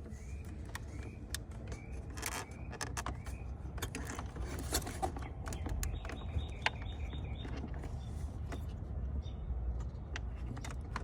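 Scattered clicks and light plastic rattles of wiring-harness connectors and dash trim being worked loose by hand, over a steady low hum.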